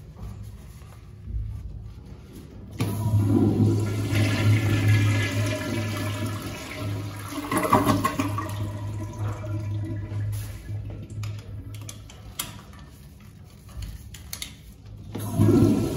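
Sloan flushometer toilet flushing: a loud rush of water with a steady low hum starts abruptly about three seconds in and tapers off after about eight seconds. A second flush starts near the end. The valve has just been rebuilt with a new diaphragm, vacuum breaker and handle kit.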